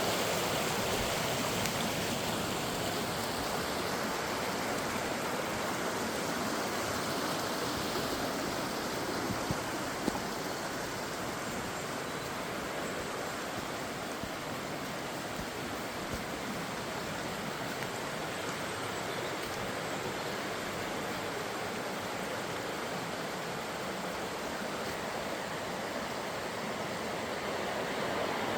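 Rushing water of a mountain stream or waterfall: a steady, even rush that grows a little louder near the end.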